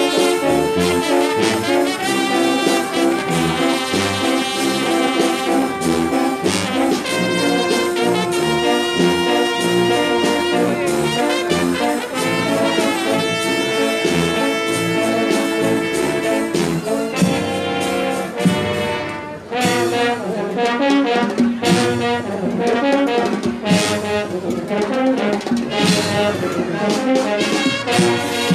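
Brass band playing, with trumpets and trombones holding long chords and moving lines. Just before two-thirds of the way in the sound dips briefly, then the band goes on in shorter, punchier notes over sharp percussive hits.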